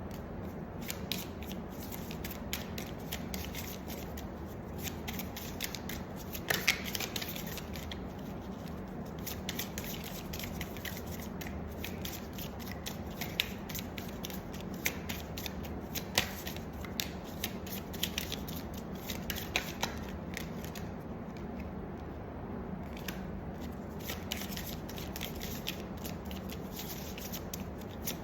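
Tarot cards being shuffled and handled by hand: a long run of light, crisp clicks and flicks with a few sharper snaps, over a steady low hum.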